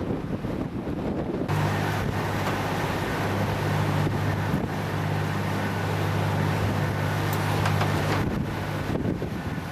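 Wind buffeting the microphone, with a long, low, steady tone that comes in abruptly about a second and a half in and cuts off sharply after roughly seven seconds.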